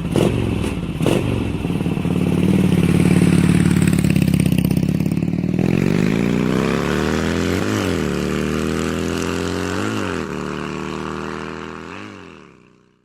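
Voge DS900X motorcycle engine running just after starting, its idle creeping up from about halfway through, with three short throttle blips about two seconds apart near the end before the sound fades out.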